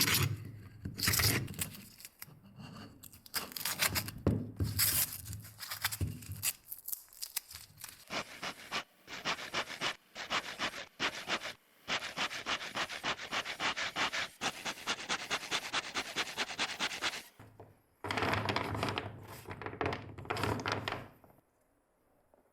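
Hand scraping or abrasive strokes on a workpiece, rubbed back and forth. The strokes are irregular at first and mixed with a few knocks, become rapid and even at several a second through the middle, then turn irregular again before stopping near the end.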